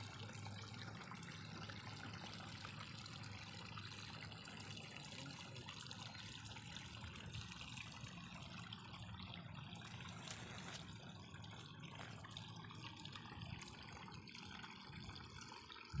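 Faint, steady trickle of running water.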